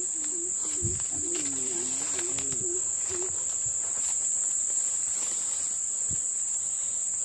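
Forest insects shrilling in one steady high-pitched drone, with a low wavering tone through the first half and a few faint clicks.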